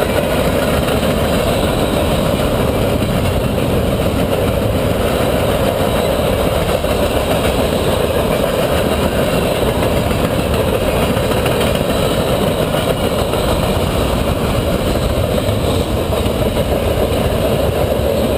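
Freight train cars rolling past close by, a steady loud rumble of steel wheels on the rails.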